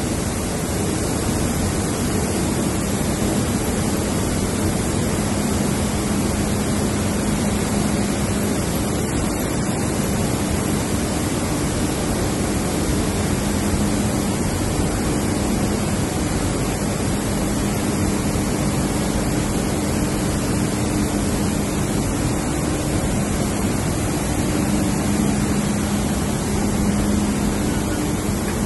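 Steady machinery din of a fortified-rice blending and bagging plant running: an even, loud hiss with a low motor hum that comes and goes.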